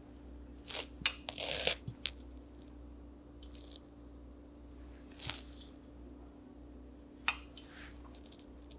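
Faint handling noises of a fingertip working loose glitter pigment out of a small jar and rubbing it onto skin: a cluster of short scrapes and clicks about a second in, then two more single ones later, over a low steady hum.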